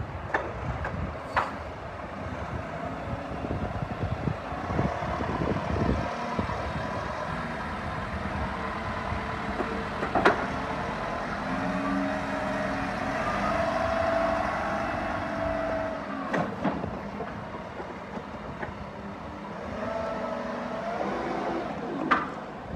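Schaeff TW 95 wheeled excavator running, its engine and hydraulic whine rising and falling in pitch as it works, with a few sharp metallic clanks, the loudest about ten seconds in.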